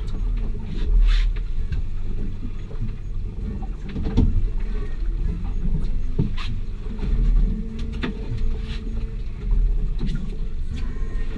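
Steady low rumble of a fishing boat at sea, its motor and water against the hull, with a few sharp knocks about 1, 4, 6 and 8 seconds in.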